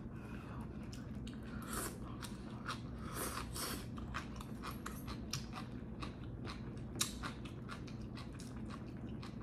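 Close-up eating sounds: noodles from a pan of spicy tteokbokki with soybean sprouts slurped in a couple of pulls in the first few seconds, then chewing with many small wet mouth clicks. One sharper click stands out about seven seconds in.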